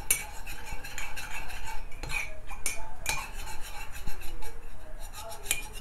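A metal spoon stirring a wet mix of chopped garlic, parsley and olive oil in a ceramic mug, scraping and clinking against the mug's sides in quick, irregular strokes.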